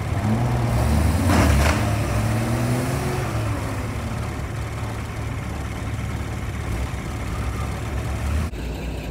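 Engine of an old military truck running hard under load as the bogged truck tries to drive through a muddy water crossing, its pitch rising over the first few seconds and then holding steady. A short burst of noise comes about a second and a half in, and the sound changes abruptly near the end.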